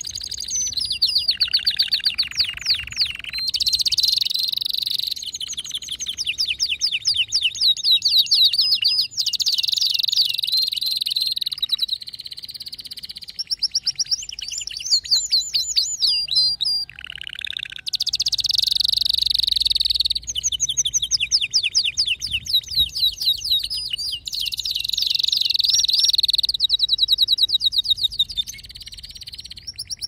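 Male canary singing full song: a long, loud run of fast trills and rolls, each phrase a rapid repeat of one note before switching to the next, with only brief pauses.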